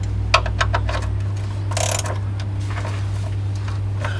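Ratchet socket wrench tightening an oil drain plug: a few groups of quick pawl clicks and a short scrape about two seconds in, over a steady low hum.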